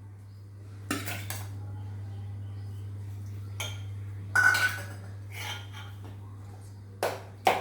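A spoon clinking and scraping against a bowl in separate short knocks as banana pieces are added to warm milk and jaggery. The loudest knocks come about halfway through and near the end.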